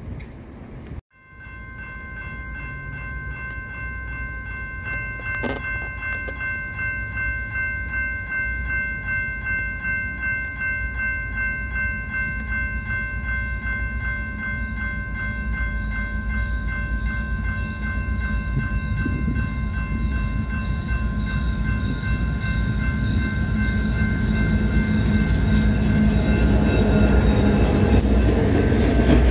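Grade-crossing warning bell ringing steadily, with a rapid pulsing ring. Under it the low rumble of an approaching diesel freight train grows steadily louder toward the end.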